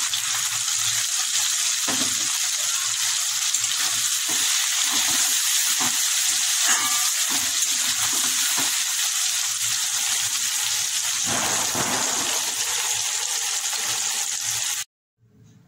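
Boiled giant taro cubes sizzling as they fry in hot oil in a metal kadai, with a spatula knocking and scraping as it turns them. The sizzle cuts off suddenly near the end.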